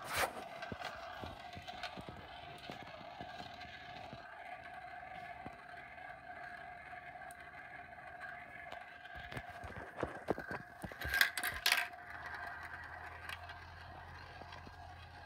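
Glass marbles rolling round the plastic funnel bowls of a toy marble run, a steady ringing hum, with a few louder clicks and clatters about ten to twelve seconds in as marbles drop through the holes.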